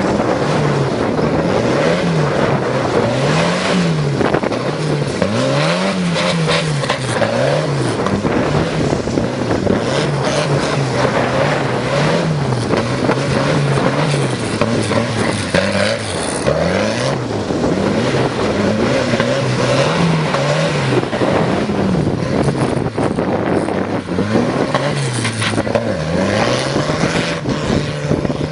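Turbocharged tractor engine being revved hard, its pitch rising and falling over and over every second or two. It grows a little fainter near the end as the tractor moves away.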